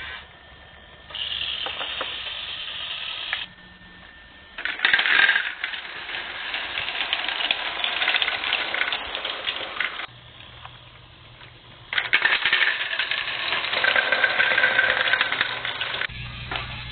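Motorized Rokenbok toy monorail trains and other Rokenbok toy machinery running, with a busy clicking and clattering of small plastic parts. The sound comes in several short segments that start and stop abruptly.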